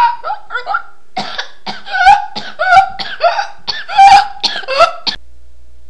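A person's voice making a rapid run of about a dozen short, loud yelps, each bending in pitch, stopping abruptly near the end.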